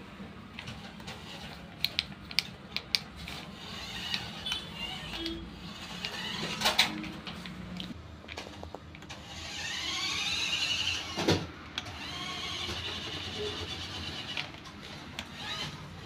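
The small electric drive motor of a toy remote-control F1 car whines as the car drives, its pitch rising and falling as it speeds up and slows. Scattered clicks and one sharper knock come partway through.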